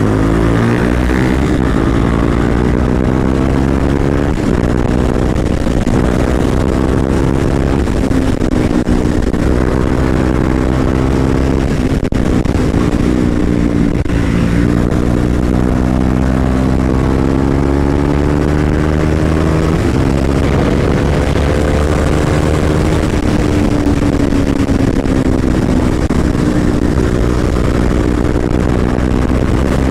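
Motorcycle engine under way, heard from the rider's own bike. Its pitch climbs steadily and drops back several times as it pulls through the gears.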